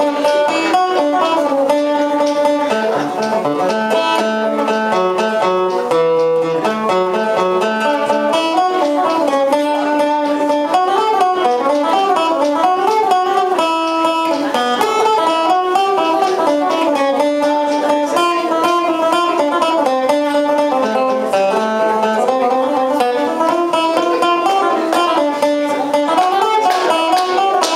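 Acoustic guitar played solo in an instrumental break: a steady stream of quick picked notes and runs in a bluegrass style.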